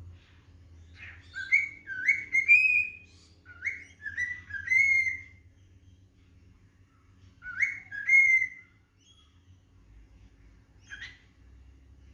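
Cockatiel whistling its song: a run of short rising whistled notes, a pause, a second shorter run, then one brief call near the end.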